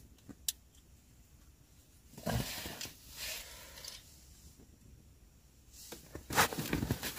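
Faint rustling and crunching from someone moving about in the snow, in two bursts of about a second each, with a single click just after the start.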